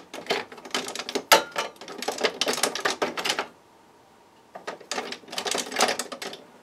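Rapid clicking and clattering of small hard objects being moved around on a workbench, as in rummaging among tools while searching for the flux. The clatter stops for about a second past the halfway point, then starts again.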